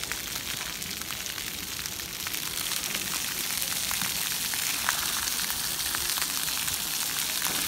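Splash pad ground jets spraying water and pattering onto wet concrete, a steady hiss that grows a little louder.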